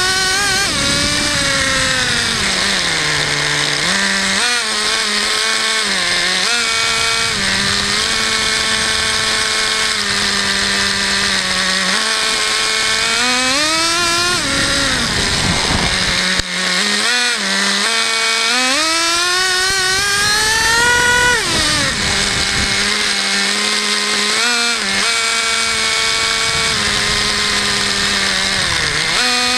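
Traxxas Jato 3.3 nitro RC car's small two-stroke glow engine running, settling back to a steady idle between short throttle blips and two longer revs that climb and fall away.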